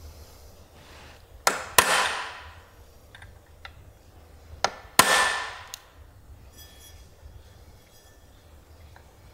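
Hammer striking a steel punch to mark timing dots on an AEC Routemaster engine's timing gears: a light tap then a hard metallic strike, twice, about three seconds apart, each hard strike ringing briefly.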